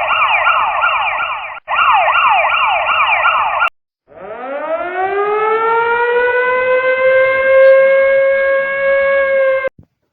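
A siren in two parts. First a fast yelp, its pitch sweeping down about three to four times a second, with a brief break partway through; it stops at about three and a half seconds. After a short pause a second siren winds up from low to a steady high wail, then cuts off abruptly near the end.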